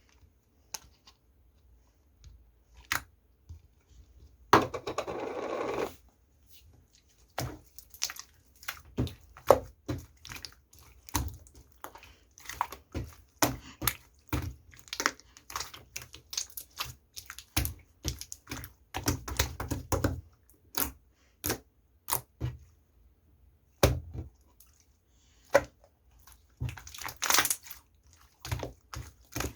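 Handling noises: a long run of irregular sharp clicks and taps, with a rustling, tearing sound for about a second and a half around four and a half seconds in.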